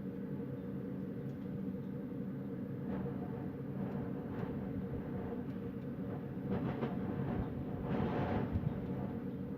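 Wind blowing as a steady low rumble, with gusts swelling from about three seconds in and peaking near the end.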